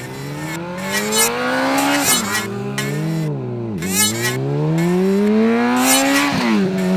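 Car engine sound effect revving hard, its pitch climbing and then dropping sharply at each gear change, with a dip and climb again midway.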